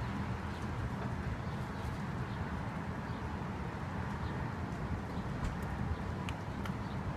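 Outdoor ambience: a steady low rumble with short, faint bird chirps scattered throughout.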